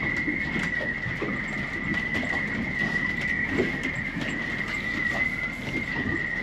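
Irregular light knocks and clattering from handling things, over a steady high-pitched whine.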